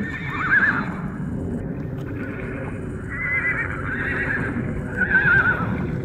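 Wild stallions fighting, giving high, wavering squeals: one about half a second in, a run of them around three to four and a half seconds, and a last loud one about five seconds in, over hooves scuffling on rocky ground.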